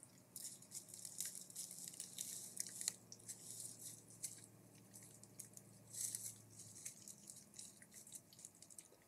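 Faint, irregular dripping ticks over a soft hiss, with a low steady hum that stops about seven seconds in.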